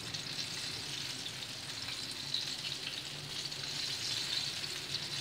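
Flour-coated chicken pieces deep-frying in hot oil in a pan: a steady sizzle with small crackles throughout.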